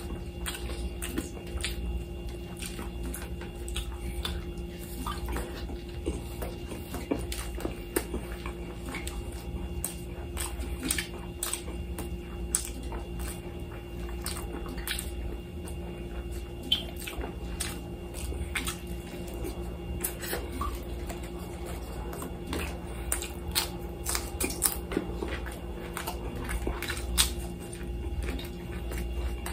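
A person chewing grilled lamb and rice close to the microphone, with frequent short wet mouth clicks and lip smacks, over a steady low hum.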